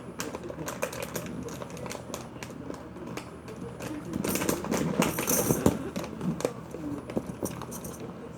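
Small plastic fidget toys clicking and clattering as they are handled and rummaged through, with a busier, louder stretch of clatter about four to six seconds in.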